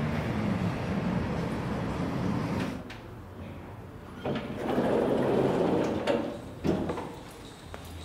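A door being worked: a click, a rush of noise lasting about a second and a half, then two sharp clicks, after a steady low hum at the start.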